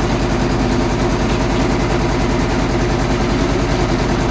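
Stationary engine running steadily with a fast, even firing rhythm.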